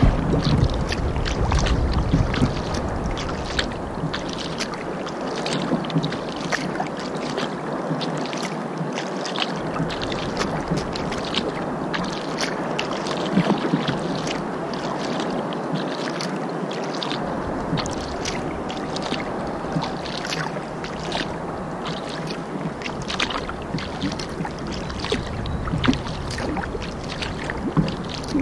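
Kayak paddling on a river: the paddle blades dip and splash with frequent small splashes and drips over a steady wash of moving water.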